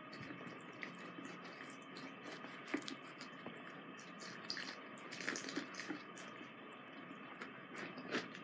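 Bathroom sink tap running steadily, with small splashes and drips as a soapy toy is washed under it.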